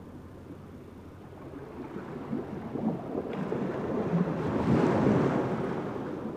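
Wind buffeting the microphone on a seashore, a rough rumble that swells to a strong gust about five seconds in and then eases off.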